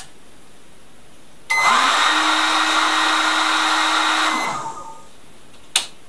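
Hand-held hair dryer switched on through a microwave-oven timer board's relay: its fan spins up over about half a second, runs steadily for about three seconds, then cuts off and winds down. A click at the start and a sharp, louder click near the end.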